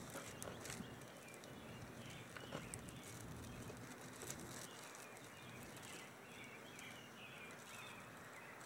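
Faint outdoor ambience with distant birds chirping now and then.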